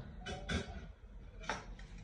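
A few light knocks and clicks of kitchen handling over a low steady hum, the sharpest about a second and a half in.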